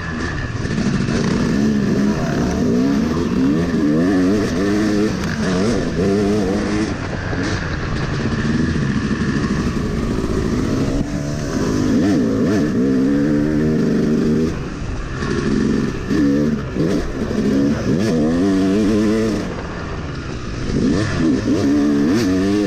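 Yamaha YZ250 two-stroke dirt bike engine revving up and down repeatedly as the rider works the throttle on a sandy downhill trail, with wind noise over the microphone.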